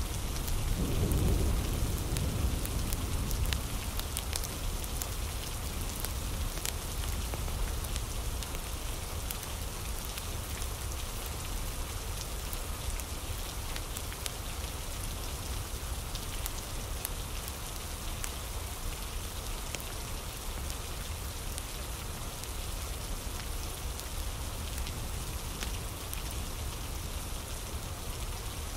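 Steady rain ambience, a dense hiss of rain falling on a surface, with a low rumble of thunder swelling in the first few seconds and scattered light ticks throughout.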